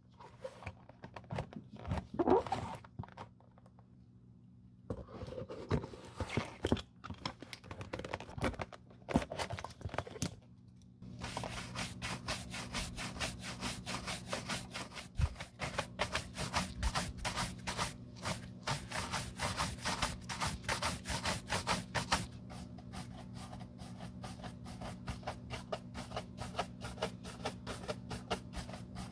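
A wooden shoe tree being fitted and handled inside a leather loafer: scattered knocks and scrapes with pauses. From about 11 s, a horsehair brush is swept in rapid back-and-forth strokes across the leather, buffing it to a shine, the strokes growing softer after about 22 s.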